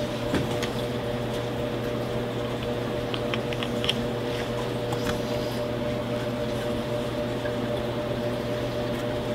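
Steady mechanical hum with a few faint ticks and scrapes of a craft knife cutting a strip of cowhide along a metal straightedge on a wooden board. The ticks cluster about halfway through.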